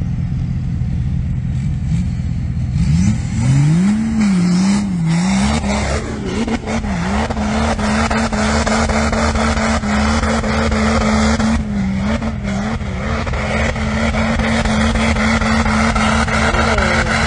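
A lifted 4x4 SUV's engine revs up sharply about three seconds in, swings up and down a few times, then holds at high revs with brief dips. Under it is the rushing noise of its tyres spinning and throwing snow and mud as it claws up a snowy slope.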